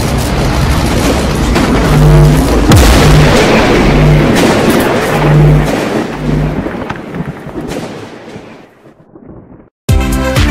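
Cinematic logo-reveal sound design: a loud, rumbling boom with sharp hits and a few low pulsing tones, fading away about eight seconds in. After a brief silence, electronic music with a steady beat starts near the end.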